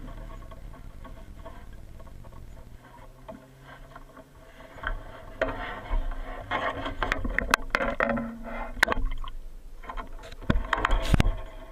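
Irregular clicks, knocks and scraping over a low rumble, sparse at first and coming thick and fast in the second half.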